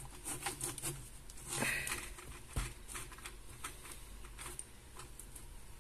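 Faint metallic clicks and handling rustles from an Alfa 9 mm Flobert revolver as a thumb works its cylinder release latch, with a soft knock about two and a half seconds in. The new cylinder is too stiff to open one-handed.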